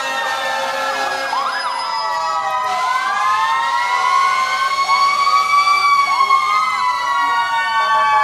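Several fire-apparatus sirens wailing at once, their slow rising and falling tones overlapping, with short quick rising whoops now and then.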